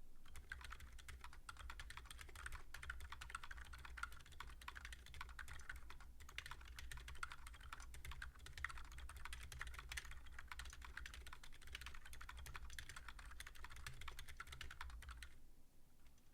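Fast, continuous typing on a Moonlander split mechanical keyboard fitted with Gazzew U4 silent tactile switches, a dense patter of key presses that stops about a second before the end.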